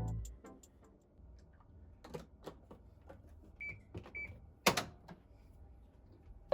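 Quiet household handling sounds: scattered light clicks and knocks, two short high electronic beeps about midway, and a sharper click near the end.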